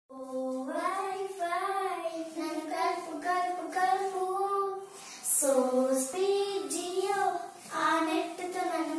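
Young girls singing a melody together with no instrumental accompaniment, with a brief pause between phrases about five seconds in.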